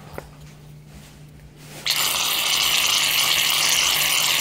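Aerosol can of Equate shaving cream dispensing foam: a loud, steady hiss that starts suddenly about two seconds in and keeps going.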